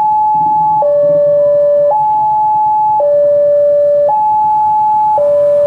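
Railway level-crossing warning alarm sounding a loud two-tone high-low signal, each tone held about a second, warning that a train is approaching.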